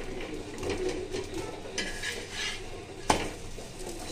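A perforated steel spatula scraping and pressing a paratha on a tawa, with one sharp metal clank about three seconds in.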